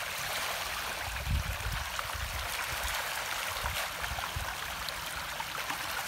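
Steady splashing and churning of pond water as pangasius catfish feed at the surface, with irregular low rumbles.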